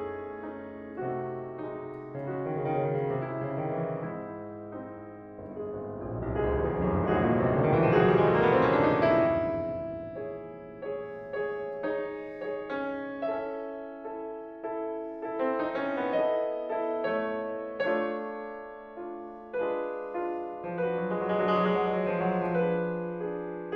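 Fazioli grand piano played solo, classical music. A fast rising run swells to the loudest point about eight seconds in, followed by separate struck chords and held notes.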